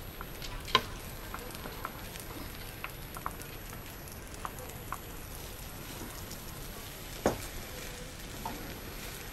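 Scattered light clicks and taps from marionettes being worked, over a steady hiss, with two sharper knocks, one about a second in and one two seconds before the end.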